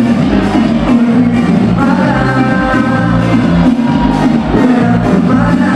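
Live band music played loud through the stage sound system: drums, bass notes and electric guitar with sung vocals.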